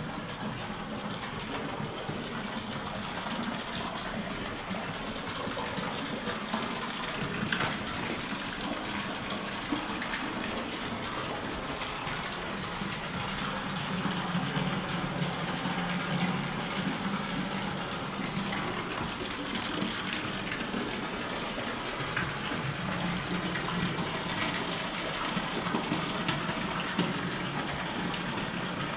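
Steady rush of water pouring into the tunnel: groundwater coming in from the hills above.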